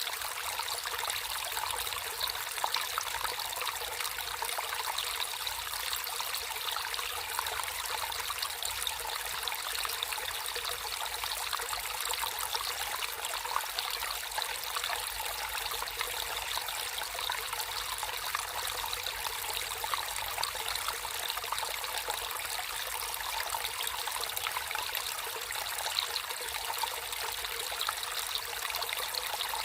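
Water flowing and trickling steadily in a natural stream, with constant splashing and babbling.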